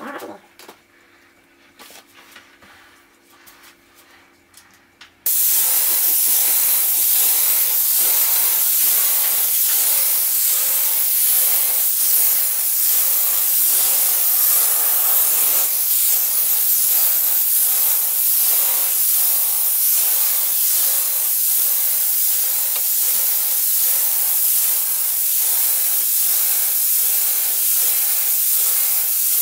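Wagner Control Pro 250M airless paint sprayer's gun and extension lance spraying paint: a loud, steady hiss that starts suddenly about five seconds in, after a few quiet seconds.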